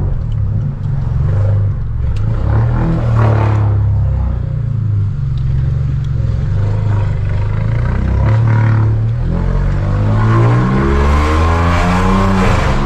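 Volkswagen Virtus 1.0 TSI three-cylinder turbo engine revved several times through a straight-through exhaust with no muffler (stainless downpipe, Y-split catback, dual outlets), its loud note rising and dropping back. There are some crackles early on, and the revs climb again near the end.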